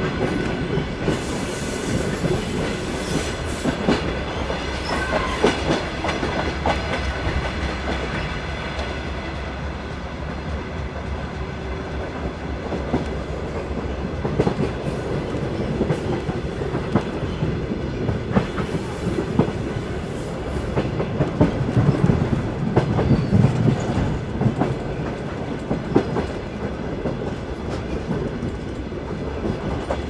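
Train running along the rails: a steady rumble with irregular clacks of the wheels over rail joints. A brief high hiss comes twice, about a second in and again about two-thirds of the way through.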